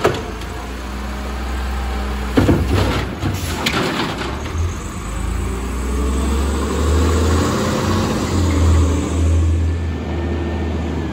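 Automated side-loader arm of a CNG Autocar ACX garbage truck dumping a cart: a few sharp knocks as the cart is shaken out over the hopper, then the hydraulic arm lowering. The engine runs steadily underneath and grows louder in the second half.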